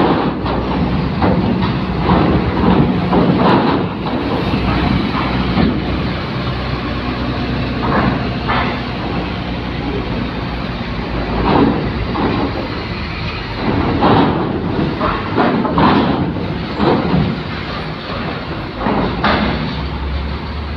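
Diesel trucks and a bus running as they drive off a ferry's bow ramp onto steel grating. Their engines hum steadily under loud, irregular clanks every second or few as wheels cross the ramp's steel plates.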